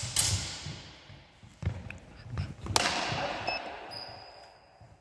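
Steel sidesword blades clashing twice, once right at the start and again about three seconds in, each strike ringing out in the hall's reverberation, with a thin metallic ring lingering near the end. Dull thuds of the fencers' feet on the wooden gym floor.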